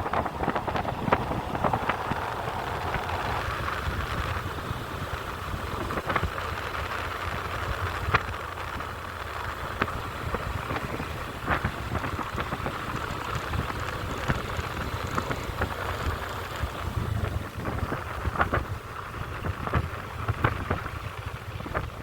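Wind buffeting the microphone on the move, with a steady low rumble and scattered short knocks.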